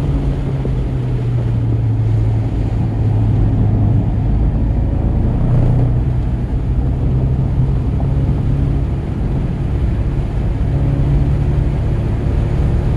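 Volkswagen GTI Mk7's turbocharged 2.0-litre four-cylinder, on a Stage 2 tune, running hard on track. Its low drone shifts pitch a few times with throttle and gear changes, over road and wind noise.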